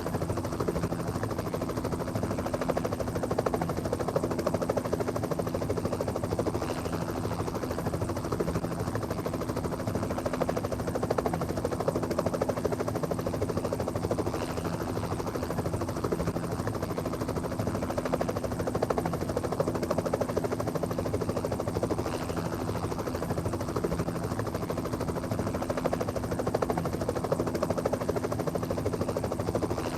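Steady vehicle drone with a constant low hum that does not change.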